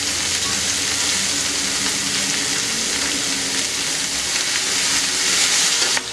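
Chopped green amaranth leaves sizzling steadily in hot mustard oil in an aluminium kadai, turned over with a plastic spatula in the second half.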